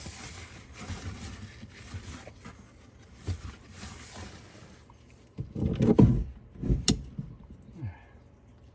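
Handling noises while tightening a faucet supply-line coupling under a sink: rustling, then a louder scraping burst about six seconds in and a sharp click about a second later.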